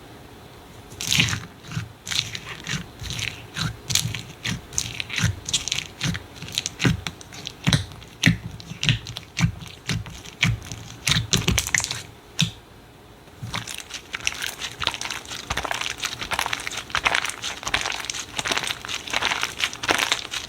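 Slime being squeezed and worked by hands, giving a run of sharp crackles and pops that starts about a second in. The pops stop briefly about twelve seconds in, then return as a denser crackle.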